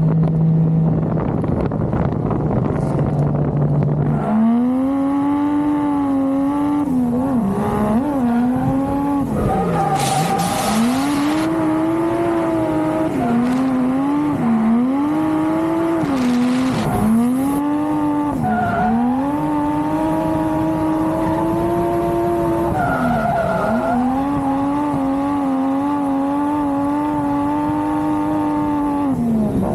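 Toyota Mark II drift car's engine held at steady revs for a few seconds, then revving hard through a drift, its note climbing and dropping again and again as the throttle is worked. Tyres skid and squeal in short bursts along the way.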